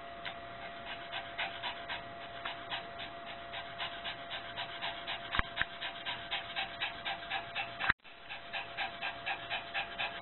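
Small dog panting rapidly and steadily, about four pants a second, starting about a second in: anxious panting during a nighttime anxiety attack.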